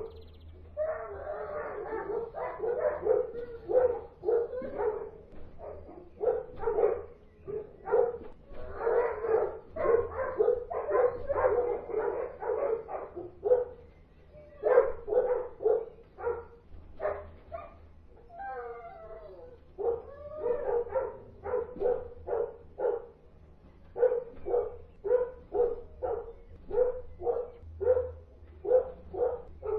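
Dogs barking persistently, about two barks a second, with a short pause about halfway through and a brief stretch of howling about two-thirds of the way in.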